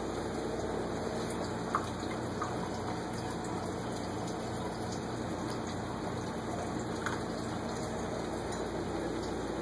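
Steady rush of circulating water with a low hum, from a saltwater reef aquarium's pumps and water flow. A few faint clicks stand out briefly.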